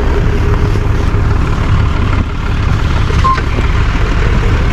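Tow truck engine running, a steady low rumble, with a short beep about three seconds in.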